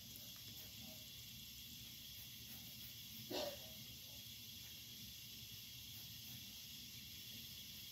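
Faint steady hiss of background noise with the soft scratch of a felt-tip marker being drawn over sketchbook paper. There is one brief, louder sound a little over three seconds in.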